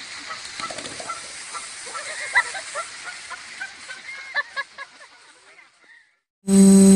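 Canada geese honking repeatedly in short calls as they chase. About six and a half seconds in, a loud, steady buzzing drone cuts in.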